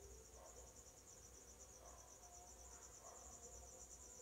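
Near silence: room tone with a faint, high-pitched, evenly pulsing trill.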